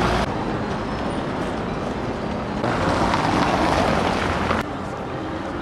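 Street traffic: cars driving past close by, the rushing noise swelling as one passes about three seconds in, then dropping suddenly near the end.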